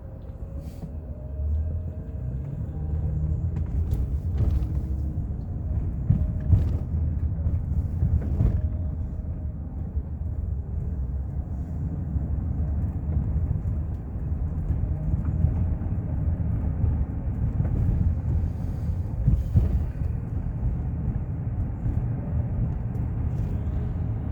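Wind buffeting the microphone, a heavy, uneven low rumble, with a few brief knocks.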